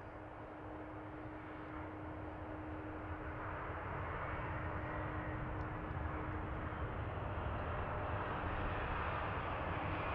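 Boeing 737-500's CFM56 turbofan engines spooling up, a jet whoosh growing steadily louder as the aircraft is pushed back by a tug.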